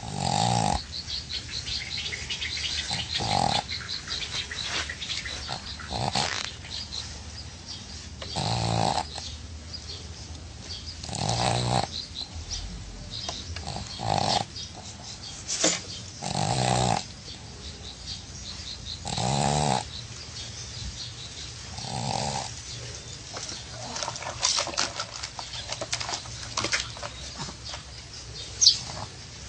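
A dog snoring in its sleep, one snore roughly every two and a half to three seconds. A short sharp click sounds near the end.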